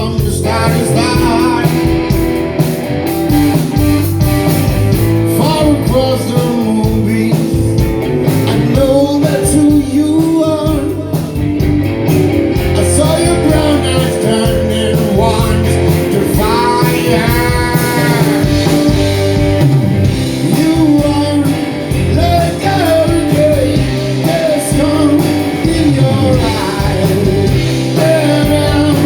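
Live blues-rock band playing, with electric guitar and a singing voice over a steady bass and drum beat.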